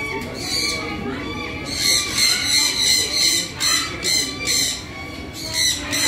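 A flock of sun conures (sun parakeets) giving repeated short, high-pitched screeches, about four a second in quick runs, stronger from about two seconds in.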